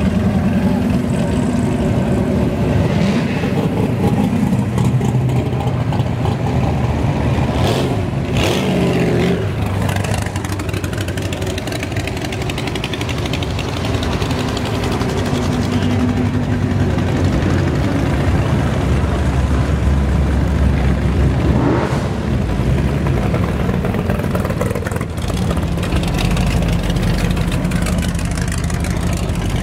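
Classic muscle cars and hot rods driving slowly past one after another, their engines running with a low, continuous rumble. One engine revs briefly about eight seconds in, and another near the 22-second mark.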